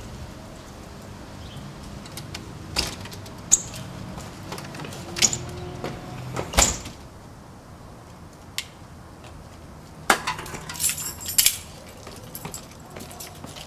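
Scattered sharp clicks and knocks over a low steady hum, with a quick cluster of small clicks and clinks from about ten to eleven and a half seconds in.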